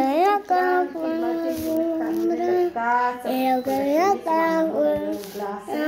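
A young girl singing in a high voice, holding notes and sliding up and down between them.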